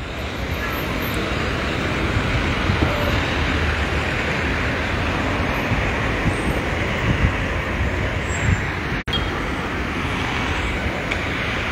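Steady road traffic noise from cars moving around a congested city roundabout. The sound cuts out for an instant about nine seconds in.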